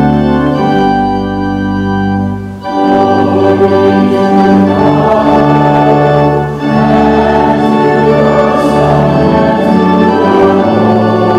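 Church organ playing held chords that change every few seconds.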